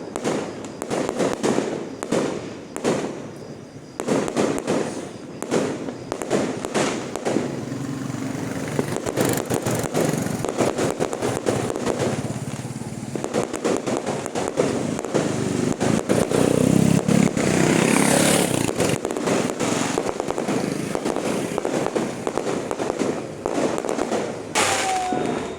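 Aerial fireworks bursting and crackling, a few separate bangs at first, then a dense continuous barrage from about four seconds in.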